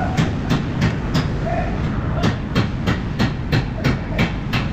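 Ratchet wrench clicking in an even rhythm, about three clicks a second, as it works a rear brake caliper bolt, over a steady low background rumble.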